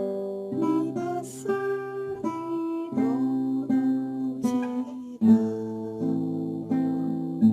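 Solo classical guitar played fingerstyle: a plucked melody over bass notes and chords that change about every second or so.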